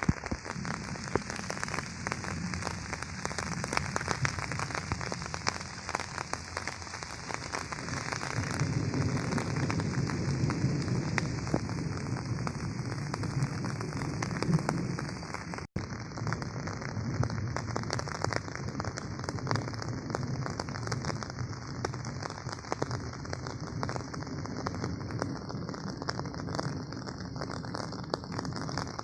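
Steady rain falling, a dense patter of many drops, with a momentary break about halfway through.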